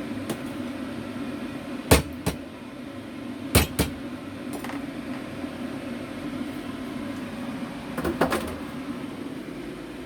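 Kitchen work sounds: a few sharp knocks or clatters over a steady hum, one pair about two seconds in, another near four seconds, and a short cluster around eight seconds.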